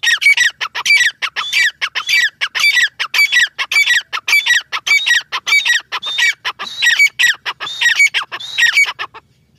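Grey francolin calling: a loud, rapid run of harsh, ringing calls, about two to three a second, that stops near the end.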